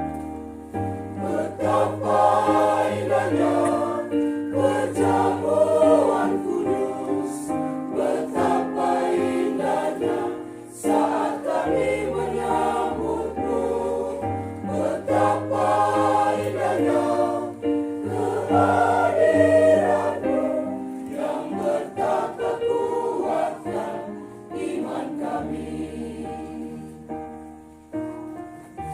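Church choir singing a hymn in several voices, in phrases over steady held bass notes from a keyboard accompaniment.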